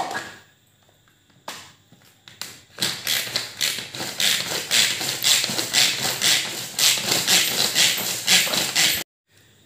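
Pull-cord mini chopper being pulled fast and repeatedly, its spinning blades rattling and chopping green chillies inside the plastic bowl. A sharp click right at the start and a few knocks, then about six seconds of rapid pull strokes that stop suddenly near the end.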